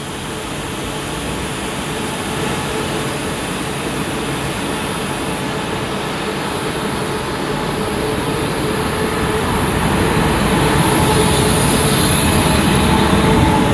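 DB class 143 electric locomotive hauling a double-deck regional train, moving slowly past at close range. A steady hum and rumble that grows louder as the locomotive draws alongside, loudest near the end.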